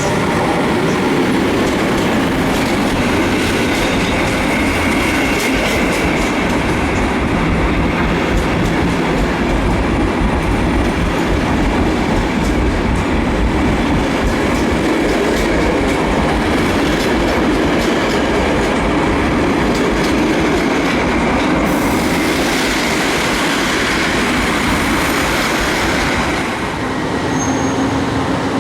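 Intercity passenger train hauled by an EP09 electric locomotive rolling steadily past, with continuous wheel-on-rail noise from the carriages.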